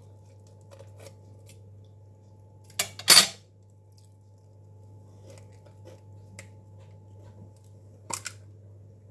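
An egg tapped and cracked against the edge of a bowl: two sharp knocks about three seconds in, the second the louder, and a lighter pair of clicks near the end, over a steady low hum.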